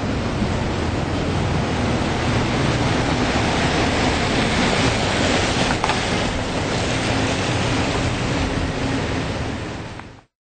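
Loud, steady rushing noise with a faint low hum under it, cutting off abruptly near the end.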